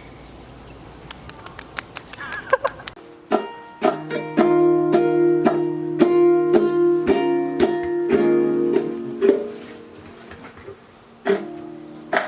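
An acoustic string instrument being strummed. A few light plucks and taps come first, then about six seconds of steady rhythmic chord strokes that fade out, and one more strum near the end.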